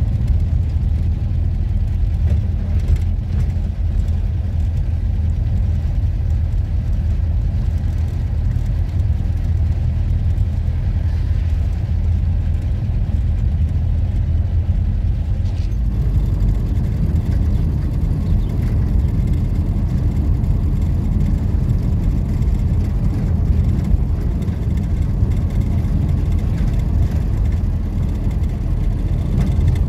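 Motor vehicle on the move: a steady low rumble of engine and road noise, shifting slightly about halfway through.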